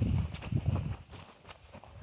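Footsteps walking over short, patchy grass: a few low, uneven thuds with light clicks in the first second, then quieter.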